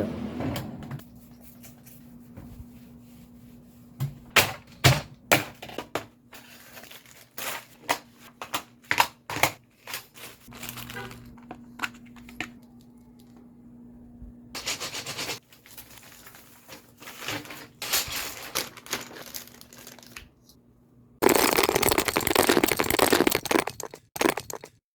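Sharp plastic clicks and snaps of a mechanical keyboard being worked on by hand, as its keycaps and key switches are pulled and fitted, coming in irregular bursts over a faint steady hum. Near the end come about four seconds of dense, continuous clatter.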